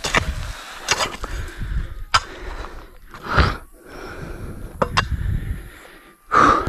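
Hand digging in dry soil: a digging tool strikes and scrapes the ground several times. A man breathes out hard from the effort, once about midway and again near the end.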